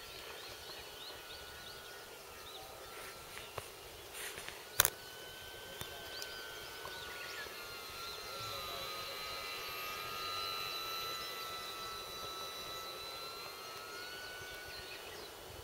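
Electric motor and propeller of an RC Pilatus Porter model plane whining as it flies overhead: a faint, high, steady tone that sags slightly in pitch in the middle and rises again, loudest about eight to eleven seconds in. A single sharp click about five seconds in.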